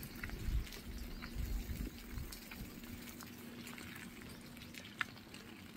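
Light rain falling on a wet street: a soft hiss with many scattered drop ticks and a few low thumps in the first two seconds, over a faint steady hum.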